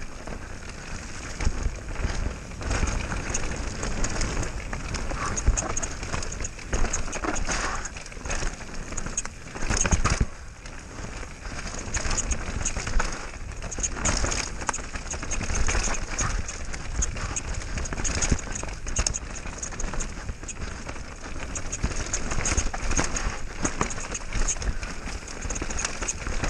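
Mountain bike rolling fast down a rough dirt forest trail: steady tyre noise on dirt and stones, with frequent rattles and knocks from the bike over the bumps.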